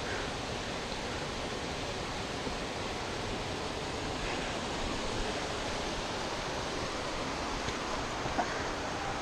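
Steady rush of a mountain waterfall cascading over rock, with a few faint knocks of boots on the rock, the clearest about eight seconds in.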